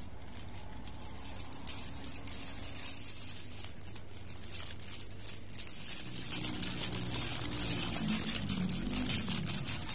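Thin plastic disposable gloves crinkling, with small scrapes and ticks of a wooden stir stick against a plastic cup as resin is mixed. It is over a steady low hum and gets busier and louder in the last few seconds.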